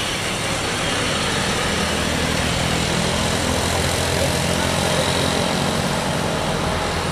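Bus engine running steadily under a continuous rush of road noise while the vehicle is under way.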